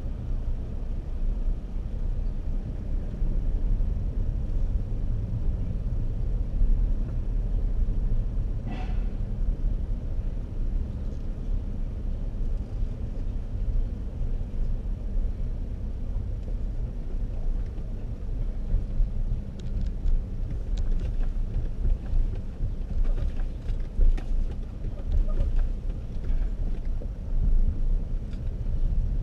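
Car driving along, a steady low rumble of engine and road noise heard from inside the car, with a brief high squeak about nine seconds in and a few faint ticks later.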